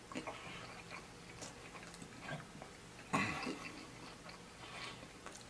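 A person chewing a mouthful of fried chicken wings, with soft wet clicks and smacks from the mouth and one louder, short throaty mouth sound falling in pitch about three seconds in.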